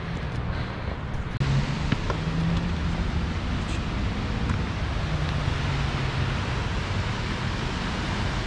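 A steady rushing noise that sets in abruptly about a second and a half in, with a faint low hum beneath it.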